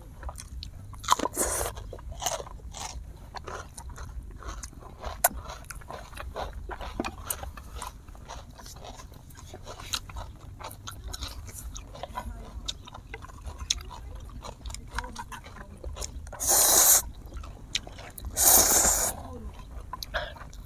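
Close-miked eating: chewing and biting on grilled duck, with many small wet clicks and smacks. Near the end come two loud slurps of instant noodles, each about half a second long.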